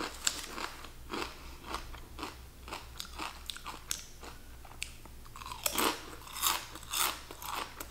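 Kettle-cooked potato chips crunching between the teeth, eaten with a cucumber slice: a run of crisp bites and chews, louder and closer together near the end.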